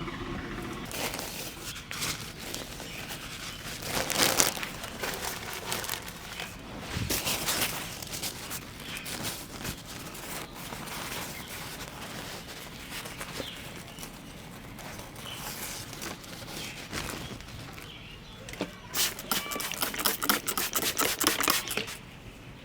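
Massage by hand: rubbing and rustling strokes over skin, hair and cloth, with a fast run of quick patting strokes near the end.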